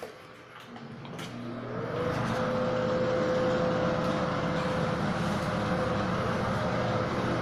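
A click, then a bathroom exhaust fan spins up: its hum rises in pitch over about a second and settles into a steady whir with a rush of air.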